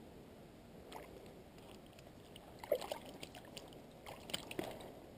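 Shallow stream water splashing and sloshing as hands handle a caught brown trout at the water's edge, in short splashes about a second in, near the middle and towards the end, over the faint flow of the stream.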